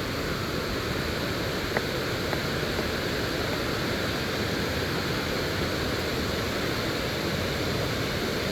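Water pouring steadily over a small dam spillway, a continuous even rush, with one faint tick about two seconds in.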